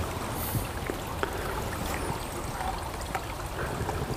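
Steady rush of flowing stream water, with a few faint clicks from a Stealth Cam trail camera's plastic case being handled.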